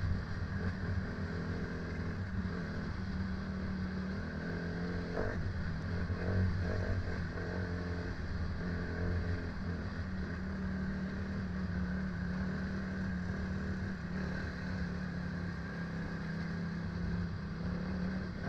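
A motor vehicle's engine running at a steady pitch: a low, even drone with no revving.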